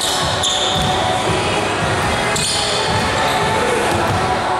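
Basketball game sound in an echoing gym: a ball bouncing repeatedly on the court, with a few short high squeals, likely from shoes.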